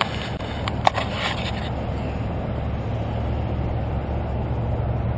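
Steady rumble of an RC rock crawler driving over rock, heard from a camera mounted on the truck, with a few knocks and scrapes in the first two seconds.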